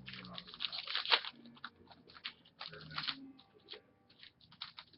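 Trading card pack wrappers and cards crinkling and crackling as they are handled, a rapid irregular run of crackles that is densest in the first second or so.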